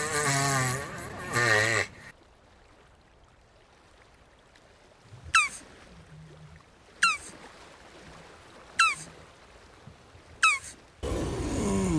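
Jabuti tortoise vocalizing: a wavering, bleat-like call at the start and another loud call near the end. In between come four short high chirps falling steeply in pitch, spaced evenly.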